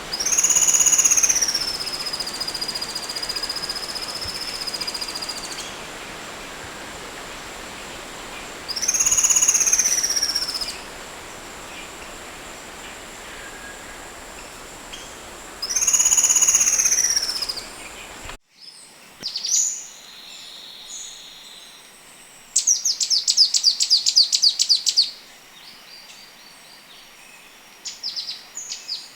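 Songbird song: three long, clear whistled notes, each jumping up then sliding down and holding, over a steady hiss. After an abrupt cut, a different recording of short chirps and a fast rattling trill lasting about two and a half seconds.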